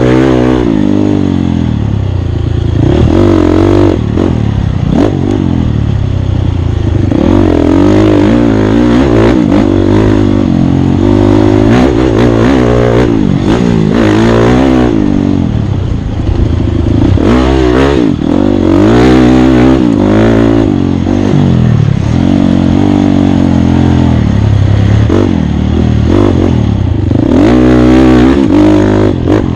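Off-road racing motorcycle engine running hard, revving up and falling back again and again as the throttle opens and closes, with clatter from the bike on rough ground.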